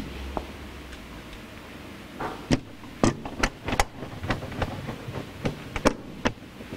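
Irregular sharp clicks and knocks of a screwdriver working the screws of a hot tub's plastic control box cover, coming thickest in the second half.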